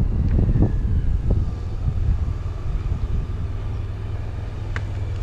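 Suzuki Burgman 650 maxi scooter's parallel-twin engine running as it rolls slowly forward, mixed with low wind rumble on the microphone, getting gradually quieter. Two sharp clicks near the end.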